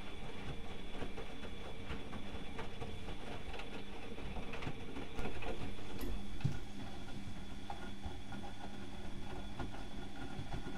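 Bauknecht WAK 6950 washing machine running its Easy-Care 60°C wash cycle: a steady motor hum with scattered small clicks. It gets louder for just over a second about five seconds in.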